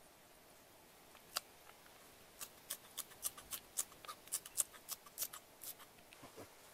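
Scissors snipping through green onion stalks: one snip just over a second in, then a steady run of quick snips, about three a second, that stops near the end.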